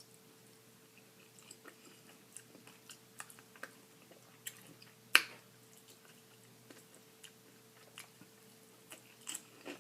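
Close-miked chewing and mouth sounds of someone eating a honey-glazed fried chicken drumstick: scattered soft clicks and smacks, with one sharp click about five seconds in.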